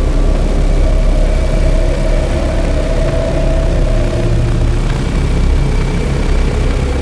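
Live experimental drone music: a dense, steady low rumble with held tones above it. A middle tone fades out about halfway through, and a deeper tone comes in briefly after it.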